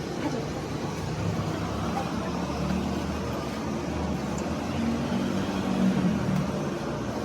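A motor vehicle engine running steadily, with a low hum that drifts slightly up and down in pitch.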